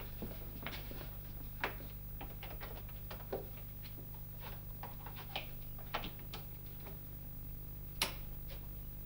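Steady low hum with scattered, irregular clicks and ticks; a louder click comes about eight seconds in.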